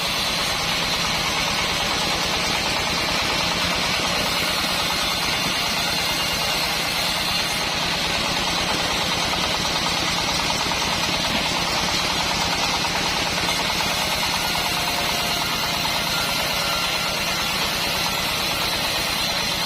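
Band sawmill running steadily, its motor humming under a thin, steady high whine.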